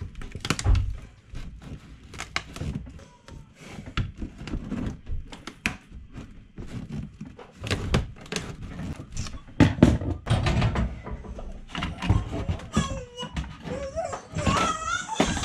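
Irregular knocks, taps and scraping as a flexible black trim strip is worked loose from a caravan's wooden wall panel, with a few heavier thuds.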